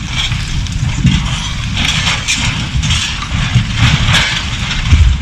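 Bulldozer's diesel engine running with a pulsing low rumble, and irregular harsh scraping and clanking bursts every second or so.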